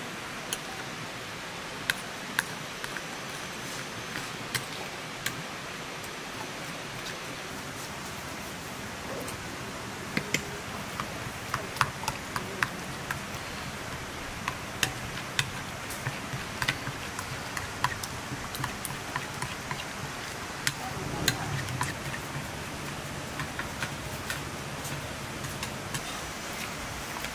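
A metal spoon clinking and scraping against a cut-glass bowl as spices are mixed in, with sharp clinks scattered throughout, over a steady hiss.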